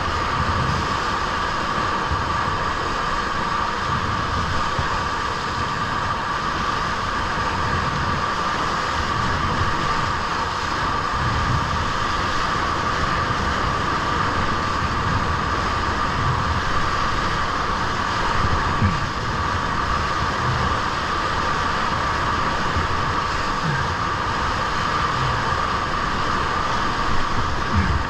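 Steady rush of whitewater from a standing river wave foaming around a surfing whitewater kayak, with a few low thumps near the middle and end.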